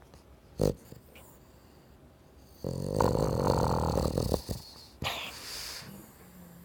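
Boston Terrier snoring in its sleep: one long, fluttering snore of about two seconds, then a shorter breathy snuffle. A short thump comes about half a second in.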